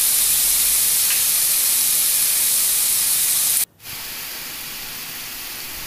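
Ash gourd strips and potato pieces sizzling in mustard oil in a frying pan over medium heat: a steady hiss. A little past halfway it cuts out for an instant and comes back quieter.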